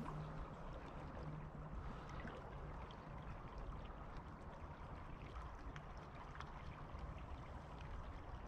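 Steady, faint rush of a river's flowing water, with a few faint ticks.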